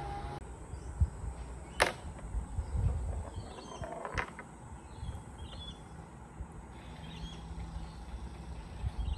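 Small balls of a tabletop mini pool table clicking as a cat paws at them: two sharp knocks, about two seconds in and again about four seconds in, with smaller taps and soft rustling between.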